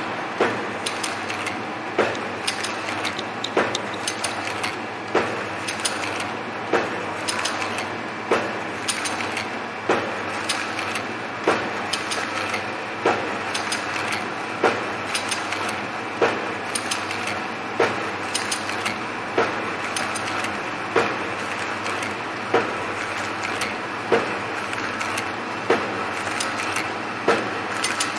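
ATM-320L automatic sachet filling and packing machine running, a steady mechanical clatter with a sharp clack about every second and a half and lighter clicks between, one clack per bag cycle.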